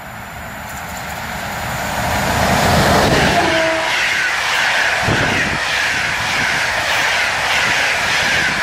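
PKP Intercity passenger train hauled by an EP09 electric locomotive passing close by. A rumble grows louder over the first few seconds as it approaches, then steady, rhythmic wheel clatter over the rails continues as the coaches go by.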